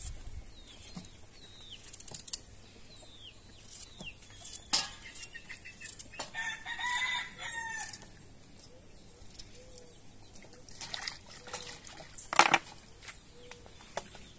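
A rooster crows once, about six seconds in, a call lasting nearly two seconds, with hens clucking and small chirping calls around it. Scattered sharp clicks and knocks from a knife and steel bowl, the loudest about twelve seconds in.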